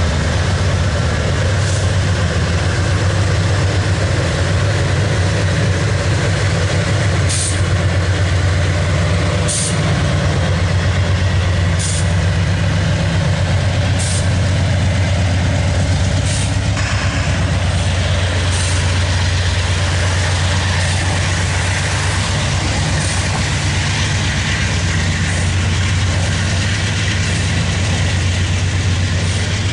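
Loaded autorack freight train rolling past: a steady, heavy low rumble, with a run of sharp clicks about every two seconds in the first half.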